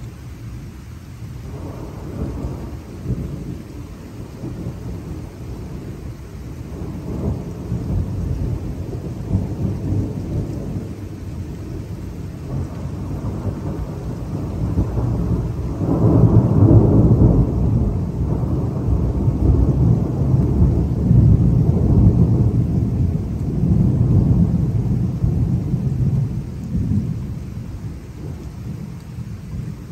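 Thunder rolling in long low rumbles, heard through a phone microphone, swelling to its loudest about halfway through and easing off near the end.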